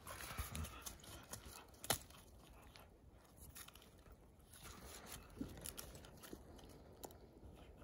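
Faint crunching and rustling in dry leaf litter as two Bedlington whippets root about and chew at sticks, with scattered small cracks and one sharp snap about two seconds in.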